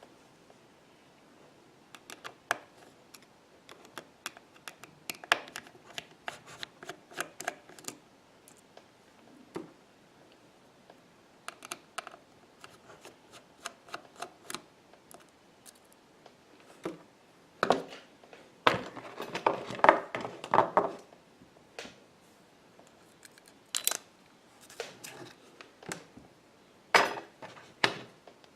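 Small repair tools clicking and scraping against the opened iPhone 6's internal parts: sharp light clicks scattered throughout, with a denser stretch of scraping and rustling about two-thirds of the way through.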